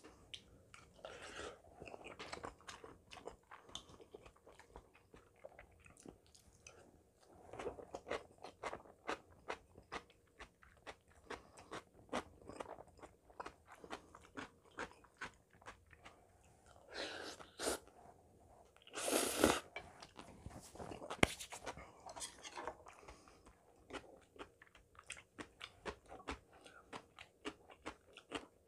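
Close-miked mouth sounds of a person eating: steady chewing with many quick, crisp crunches, as of pickled cucumber (oiji) and other crunchy pickled side dishes along with curry rice. A few louder, longer noisy bursts come about two-thirds of the way through.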